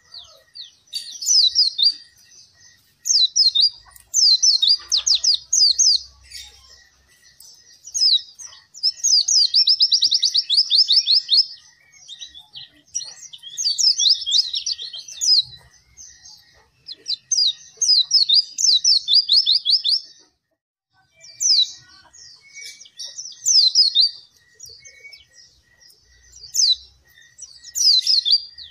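A white-eye (pleci) in full song: repeated bursts of rapid, high-pitched twittering, each one to two seconds long, made of quick falling notes with short pauses between bursts. This is the vigorous 'gacor' song that keepers play to set other pleci singing.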